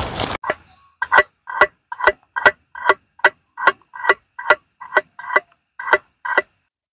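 A knife chopping garlic cloves on the lid of a metal mess tin, a steady series of about fourteen sharp, briefly ringing taps at roughly two and a half a second.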